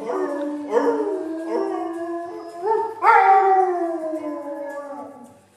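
Dog howling ('singing') in long drawn-out notes that rise in steps, with the loudest rise about three seconds in, then slide slowly down and break off near the end.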